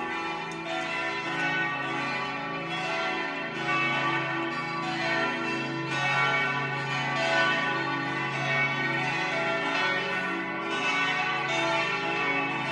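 Several church bells ringing together in a continuous peal, their strokes overlapping without a break.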